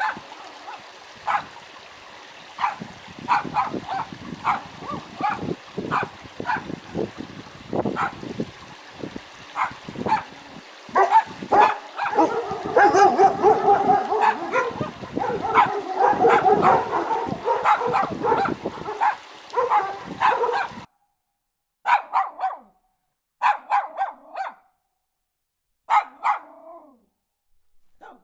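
Dog barking over and over, thickest and loudest in the middle. After a short break come three separate short barks or yelps, the last one falling in pitch.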